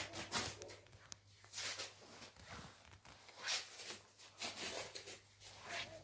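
Footsteps and clothing rustle on a wooden floor, coming in irregular short bursts, over a steady low hum.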